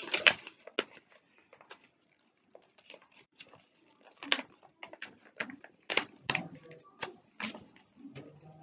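Origami paper being folded and creased by hand: irregular short, sharp crackles and rustles as the sheet is pressed and turned.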